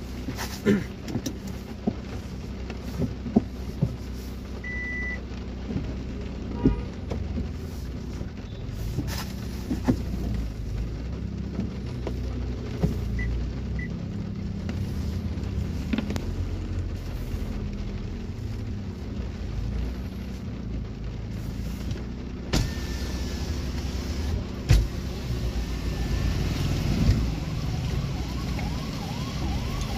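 Inside a car cabin in heavy rain: a steady low rumble from the car with rain on the windscreen and roof, scattered knocks, and a few short high beeps.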